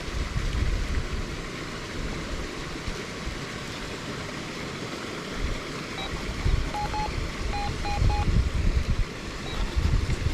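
Steady rushing of a small creek and waterfall with low gusts of wind on the microphone. About six and a half seconds in, a Minelab Gold Monster 1000 metal detector gives a quick run of about five short beeps, its signal that a metal target is still under the coil.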